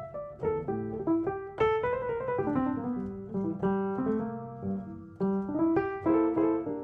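Background music: a gentle piano playing a melody of single struck notes over chords.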